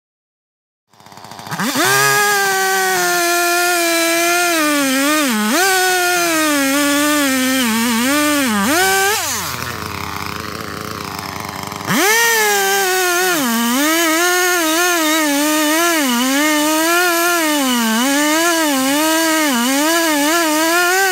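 Chainsaw engine starting up about a second in and cutting into a tree trunk at full throttle, its pitch dipping and recovering as the chain bites into the wood. About nine seconds in it drops back to idle, then about twelve seconds in it revs up and goes back into the cut. The cut is the face notch of a tongue-and-groove felling.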